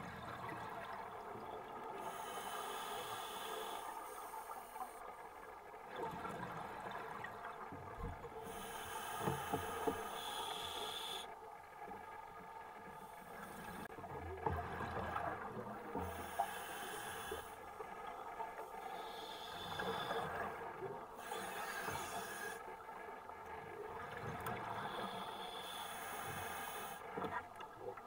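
Underwater recording of a scuba diver breathing through a regulator: hissing inhalations of a few seconds each alternate with rumbling, bubbling exhalations, over a steady low hum.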